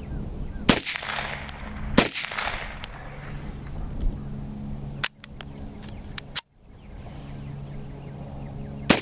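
Type 14 Nambu pistol firing 8mm Nambu: two shots a little over a second apart, each trailing an echo, then two short sharp clicks, then a third shot near the end.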